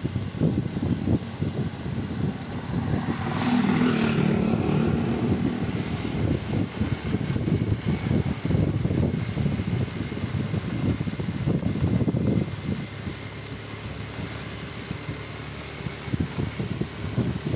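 Vehicle engine running while riding along, with wind rumbling on the microphone; an engine note stands out for a couple of seconds about three seconds in.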